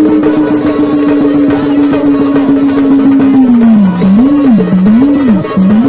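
Marathi gondhal folk song: a male singer holds one long note for about three seconds, then swings the pitch up and down in wide ornamental waves. Fast hand-drum rhythm accompanies him throughout.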